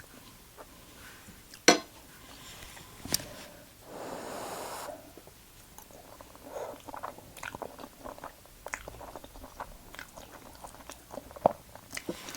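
A person chewing food close to the microphone, with wet mouth clicks and lip smacks scattered throughout, and a short breathy rush about four seconds in.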